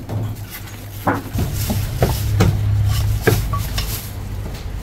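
A Chinese cleaver knocking on a thick round wooden chopping block as marinated goose is chopped: about seven sharp knocks in three seconds, over a steady low hum.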